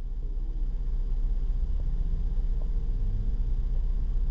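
2007 Dodge Caravan's 3.3-litre V6 idling steadily as it warms up, a low, even rumble.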